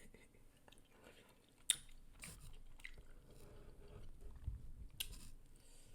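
A person chewing food, with a few sharp mouth smacks.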